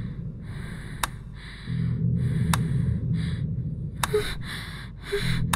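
A woman's quick, frightened breathing, short gasping breaths in and out. A sharp click sounds about every second and a half, and a low hum comes and goes twice.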